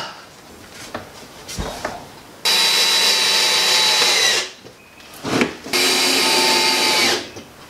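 Handheld power drill running at a steady speed in two bursts, the first about two seconds long and the second about one and a half, with a short pause between: screws being driven to mount the roller blind on the wooden window frame.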